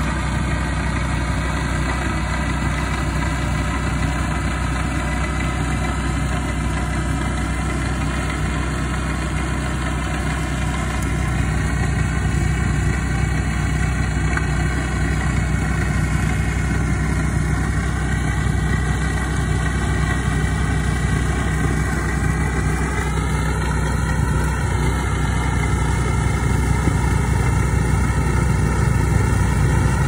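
A small petrol engine running steadily at a constant speed, with a slight waver in pitch about two-thirds of the way through.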